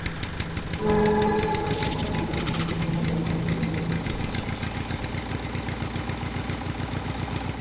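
An engine running steadily with a fast, even firing rhythm and a steady low hum that drops away about halfway through; a short higher tone sounds about a second in.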